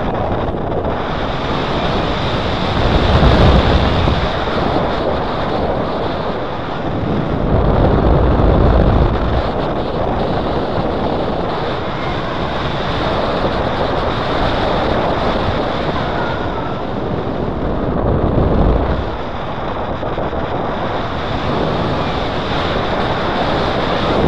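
Wind rushing over the microphone of a paraglider in flight, a steady roar with stronger low buffeting gusts every several seconds.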